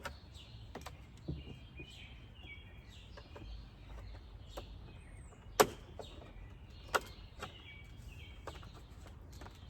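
Plastic retaining clips on a 2008–2012 Honda Accord's front grille being pried and popped off, giving a few sharp clicks and snaps, the loudest about halfway through and another about a second later. Birds chirp in the background.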